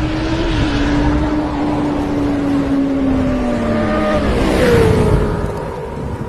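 Motorcycle engine running under load, its pitch holding steady and then dropping away about four seconds in as the revs fall.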